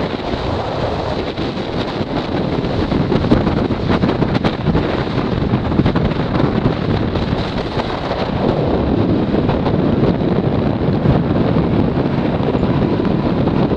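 Wind buffeting the microphone of a camera carried on a moving motorbike, a loud steady rush with road and engine noise beneath it.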